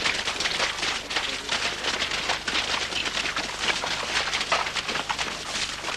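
A group of people running through dry brush and undergrowth: a dense, continuous rustling and crackling of feet and bodies pushing through dry vegetation.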